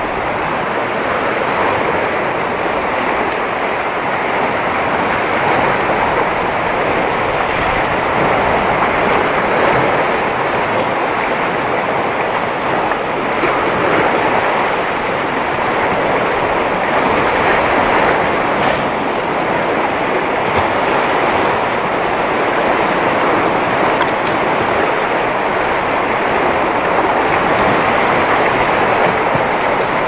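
Sea waves breaking and washing over coastal rocks: a steady, loud hiss of surf without a break.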